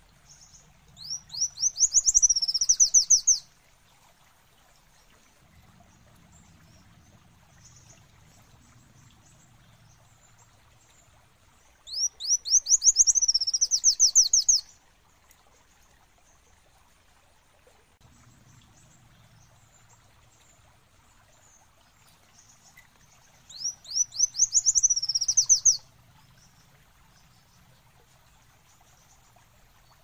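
Kolibri wulung, a sunbird, singing three short phrases about eleven seconds apart, each a quick run of high, upswept notes lasting two to three seconds.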